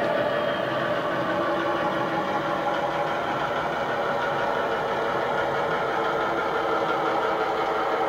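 DCC sound decoder playing a Class 29 diesel engine sound file through a model locomotive's small speaker: a steady running engine drone with a turbo whistle over it as the model moves along.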